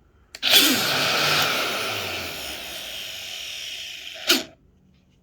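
DeWalt 20V Max cordless palm sander switched on with a click and run for about four seconds with its O-ring brake belt removed: a loud whirring that slowly gets quieter, then a sharp burst near the end and it cuts off suddenly.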